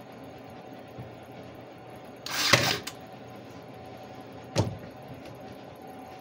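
Ryobi cordless brad nailer firing a brad into the wood: one loud burst about two and a half seconds in, lasting about half a second. About two seconds later there is a single short, sharp knock.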